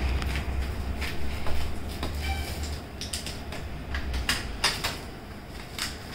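A small knife cutting and scraping through the paper wrapping of a book box: a run of short scratches and clicks in the second half, over a low rumble that stops about three seconds in.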